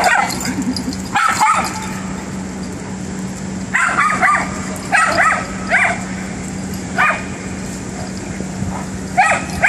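Young dogs yipping and barking in short, high bursts as they play-fight, in clusters near the start and again through the middle and near the end. A steady low hum runs underneath.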